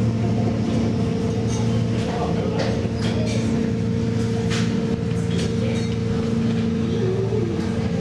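Paddle wheel of a paddle ship churning water inside its enclosed paddle box, with irregular splashes and knocks over a steady drone from the drive machinery.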